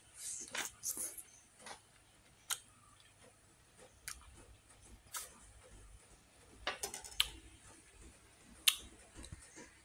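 Scattered light clicks and taps at an irregular pace, a few close together in the first second and again about seven seconds in, over a faint low hum.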